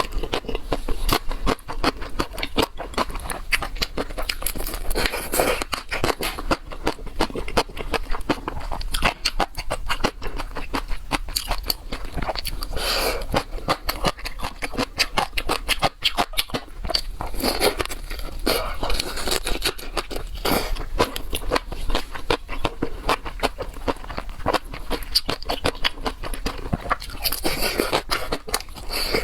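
Close-miked chewing of seafood: a continuous run of crunching and crackling made up of many sharp clicks, loud throughout.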